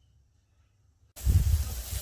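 Near silence, then about a second in a loud rushing hiss with a heavy low rumble sets in suddenly and keeps going.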